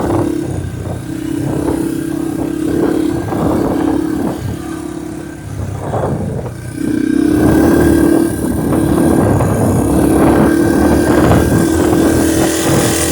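Vehicle engine running under throttle. Its note holds steady, cuts off and comes back again and again, with a low rumble and wind buffeting the microphone throughout.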